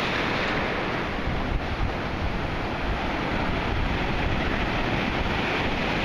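Steady wash of sea water and waves, with wind buffeting the microphone in a low, unsteady rumble.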